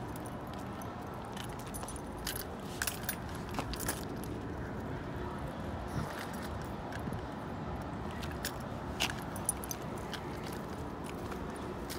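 Light metal jingling and clinking at irregular moments from the tags and clip on a small dog's collar and leash as it walks, over a steady low background hum.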